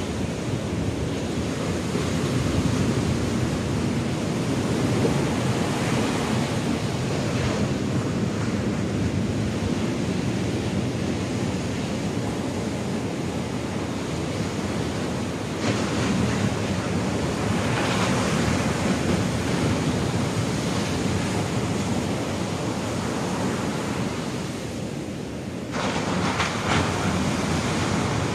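Ocean surf breaking on a sandy beach: a continuous wash of water with louder surges as waves crash, one about halfway through and a sudden, stronger one near the end. Wind rumbles on the microphone underneath.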